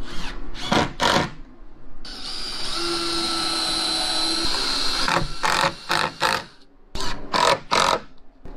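DeWalt cordless drill running in short trigger bursts, with one longer steady run of about three seconds in the middle, drilling into thin wooden strips.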